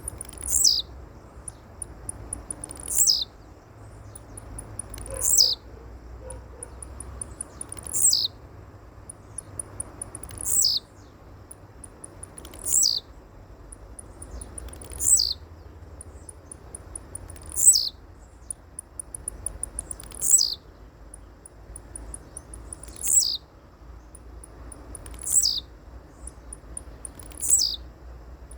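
A bird calling over and over: a high, quickly falling whistle about every two and a half seconds, twelve times, with quick, very high ticking between the calls.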